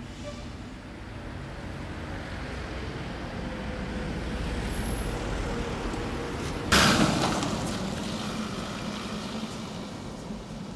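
A vehicle's engine running close by, growing slowly louder, with a sudden loud rush of noise about seven seconds in that fades over a couple of seconds.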